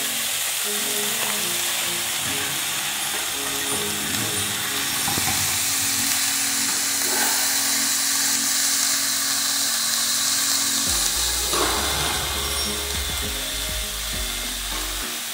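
Sangri pods sizzling as they fry in a hot pan of masala, stirred with a spatula; the sizzle grows brighter about five seconds in and eases near the end. Background music plays underneath.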